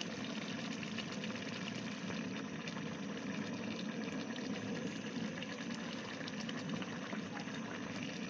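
Pot of vegetable soup at a rolling boil: steady bubbling with many small pops and crackles.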